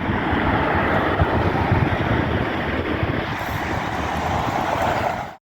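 Steady vehicle noise with wind buffeting the microphone, a low rumble under a constant rush, cutting off suddenly near the end.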